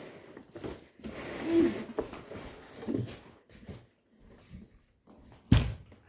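A Lasko 3733 box fan being pulled out of its cardboard carton, with scattered scraping and rustling of the cardboard, then one heavy thump as the fan is set down on the floor near the end.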